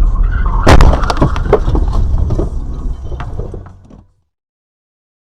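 A vehicle crash heard over a low road rumble: a loud bang about a second in, followed by a run of cracks and crunches like breaking glass and debris, then the sound cuts off suddenly.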